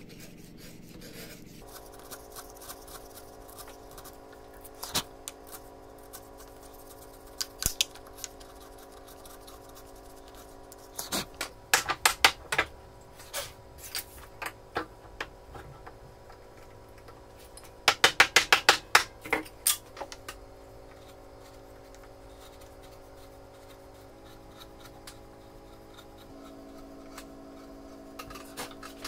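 A steel chisel paring wood inside the throat of a wooden hand plane: crisp cutting clicks, a few on their own and two quick runs of loud clicks, the first about eleven seconds in and the second about eighteen seconds in.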